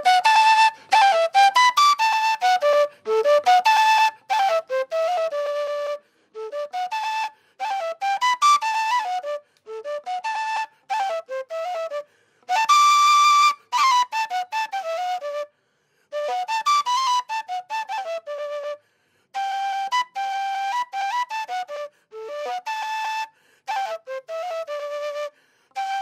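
Colombian gaita (chuana), the Caribbean cane duct flute, playing a solo melody in quick runs of notes broken by short pauses, with one long held high note about halfway through.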